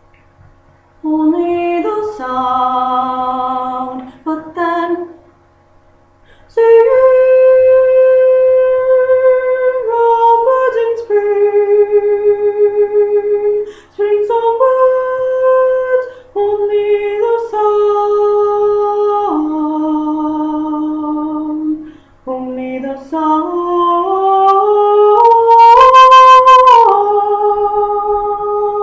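A woman singing the alto 2 part of a choral piece alone and unaccompanied, in long held notes separated by short breaths. From about 23 s in, the line climbs step by step to its loudest, highest note, then settles back.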